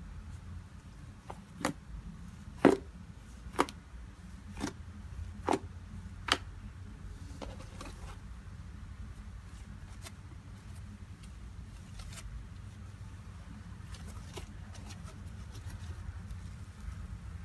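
Hands pressing and kneading a lump of homemade glue slime: six sharp pops about a second apart in the first half, then softer crackling and squishing, over a steady low hum.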